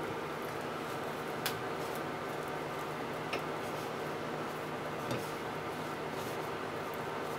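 Light taps on a ceramic plate, about three of them, as starch-coated fried tofu pieces are handled and set down, over a steady background hum.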